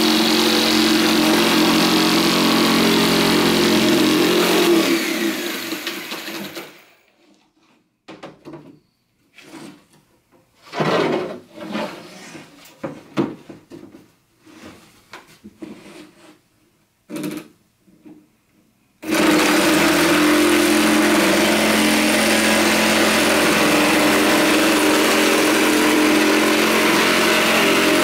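Corded electric jigsaw cutting through a wooden board, running steadily, then winding down about five seconds in. A stretch of scattered short bursts and knocks follows, and the saw starts again about two-thirds of the way through and runs steadily to the end.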